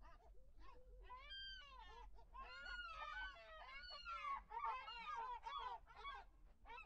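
A flock of birds calling: many short, overlapping calls that rise and fall in pitch, fairly faint and continuous.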